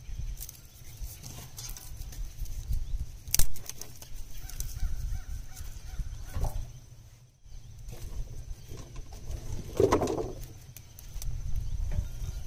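Wood fire crackling in an open cast iron wood stove while kindling sticks and a split log are handled and pushed into the firebox, with scattered sharp snaps, the loudest about three and a half seconds in, over a steady low rumble.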